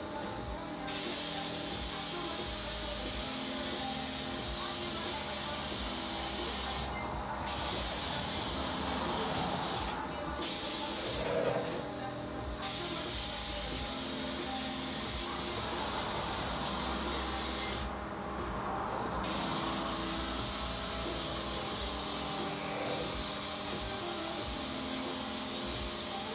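Compressed-air spray gun shooting thinned Raptor bed liner onto a jet ski's hull bottom: a loud spraying hiss in about six long bursts, broken by short pauses where the trigger is let go.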